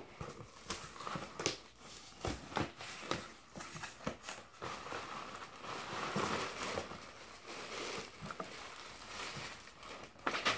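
Cardboard shipping box being opened by hand: flaps handled with many small clicks and scrapes, and paper inside rustling and crinkling, with a sharp knock near the end.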